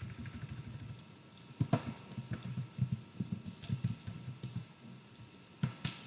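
Typing on a computer keyboard: quick runs of key clicks, pausing briefly after about a second, then a couple of sharper clicks near the end.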